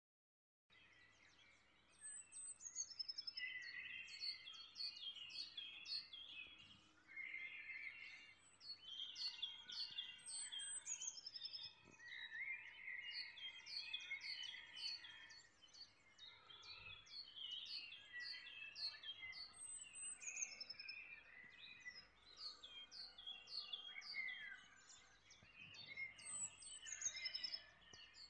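Several songbirds singing together in a chorus: dense overlapping chirps and trills, with a high phrase sliding downward that comes back every several seconds.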